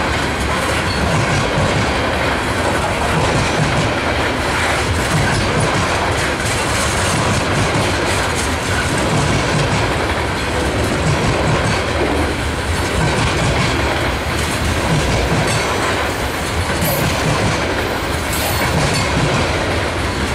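Covered hopper cars of a freight train rolling past at close range, their steel wheels clacking over the rail joints in a continuous rumble.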